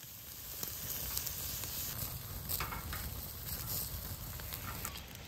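Meat sizzling in a hot pan: a steady frying hiss over a low rumble, with a few faint clicks.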